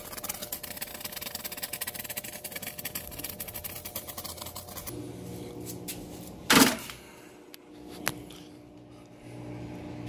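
Aerosol can of expanding spray foam dispensing with a fast sputtering hiss, stopping about five seconds in. Then one loud thump and, a moment later, a light click.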